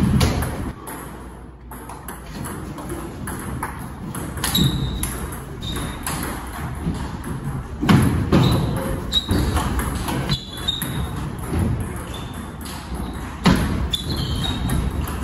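Table tennis rally: the ball clicks irregularly off the bats and bounces on the table, with short high pings. A few louder low thuds come in, one near the start, one around the middle and one near the end.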